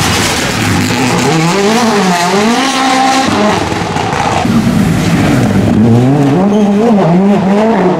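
Rally car's engine revving hard, its pitch climbing and falling repeatedly through gear changes and lifts as the car drives past at speed, with tyre noise on the tarmac.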